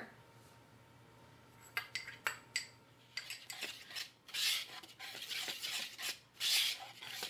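A wire whisk stirring dry flour mix in a mixing bowl: rapid scraping swishes of the wires against the bowl, with a few light clicks just before the whisking starts, about two seconds in.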